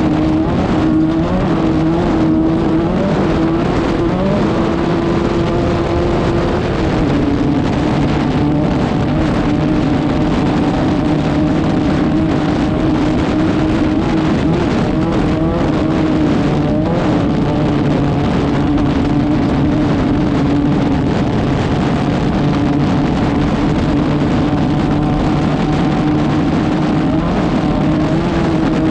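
Class 5/1600 off-road race car's air-cooled 1600 cc Volkswagen flat-four engine running continuously at a nearly steady pitch, with only small shifts in revs.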